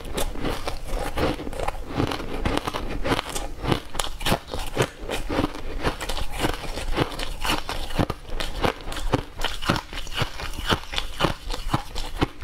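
Close-up crunching of crushed ice being chewed: a dense, irregular run of small sharp cracks that goes on without a break.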